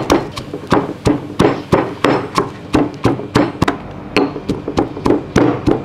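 Stone pestle pounding garlic cloves in a granite mortar: repeated sharp knocks at about three a second, with faint music underneath.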